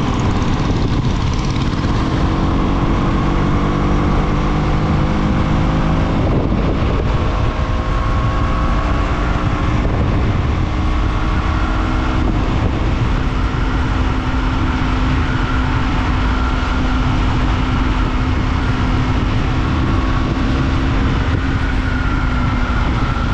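KTM Duke motorcycle's single-cylinder engine pulling hard through the gears: its pitch climbs in steps over the first six seconds or so, then holds a steady note at about 100 km/h. Heavy wind rumble on the microphone sits under it throughout.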